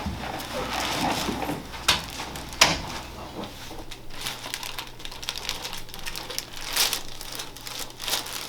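Rustling and crinkling as a patient turns over onto their back on a chiropractic treatment table, with two sharp knocks about two seconds in.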